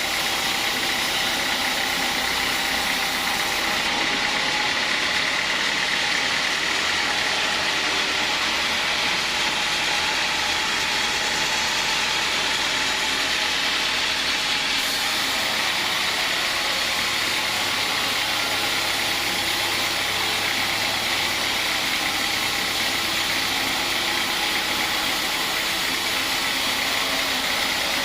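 Homemade sawmill machine running steadily, an engine drone with a steady high whine over it, unchanging throughout.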